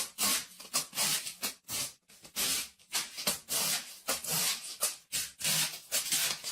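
Repeated hissing rubbing or scraping strokes, roughly two a second, with short gaps between them.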